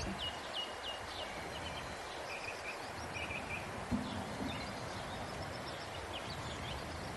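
Outdoor ambience with small birds chirping in short repeated calls over a steady hiss. There is a single knock about four seconds in.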